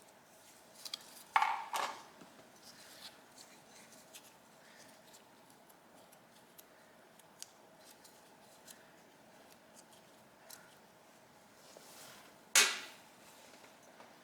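Small metal tools and parts clinking as they are handled and set down on a workbench during carburetor disassembly. There is a short clatter about a second and a half in and a single sharp clink near the end, with faint handling ticks between.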